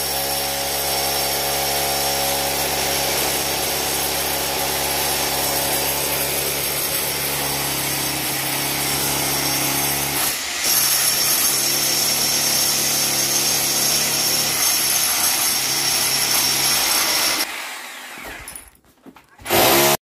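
Electric power drill boring a hole through a wall for the air conditioner's pipes, running steadily under load. It dips briefly about ten seconds in, winds down a couple of seconds before the end, and gives one short loud burst just before the end.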